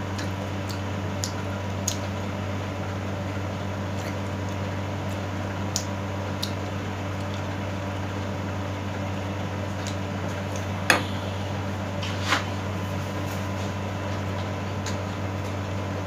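Close-up eating sounds of grilled pork belly: scattered wet chewing clicks and lip smacks, with two louder smacks about two-thirds of the way through, over a steady background hum.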